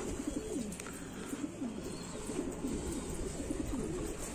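Several domestic homing pigeons cooing in a loft, low rolling coos repeating and overlapping one another.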